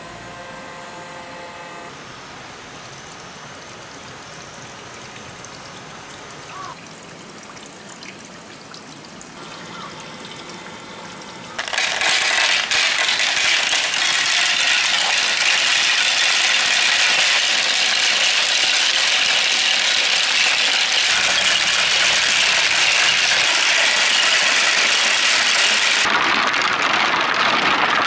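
Flowing water, fairly quiet at first; about halfway through it gives way suddenly to loud, steady rushing water.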